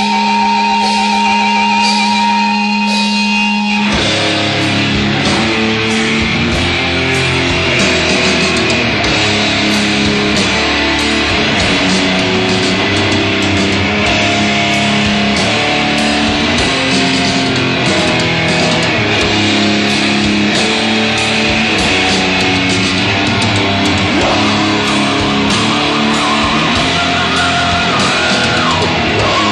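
Heavy metal band playing live, with no vocals: a held, ringing distorted guitar sound for about four seconds, then the drums, bass and fast riffing electric guitar crash in together and drive on steadily. Near the end a guitar bends a note up and back down. The recording is a dull 1980s live tape.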